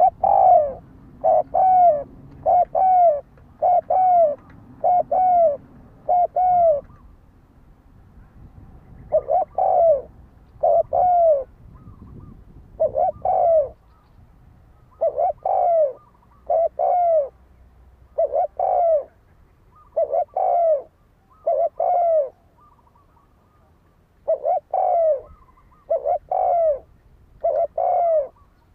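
A spotted dove cooing: runs of short, clear coos, about one a second, broken by pauses of a second or two. This is the challenge call used as a decoy to provoke wild males.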